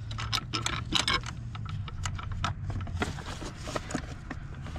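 Irregular light clicks and taps of metal parts as the battery hold-down bracket's hook is worked into place, over a steady low hum.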